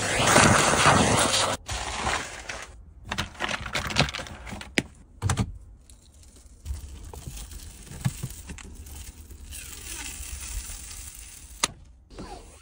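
Vacuum cleaner sucking through a hose nozzle over a car's floor carpet; it cuts off abruptly after about a second and a half. Then come light clicks, taps and scratchy rubbing from hands cleaning the dashboard and its air vents.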